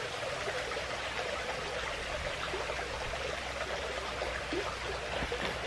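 Creek water running and trickling, a steady even rush.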